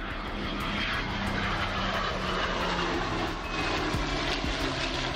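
Steady jet engine noise from F-16 fighter jets flying low past.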